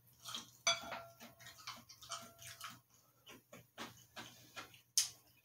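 A wooden spoon clinking and scraping in a glass bowl of cereal and milk, with the crunch of Apple Pie Toast Crunch being chewed in between. A sharper clink about 0.7 s in makes the glass ring briefly.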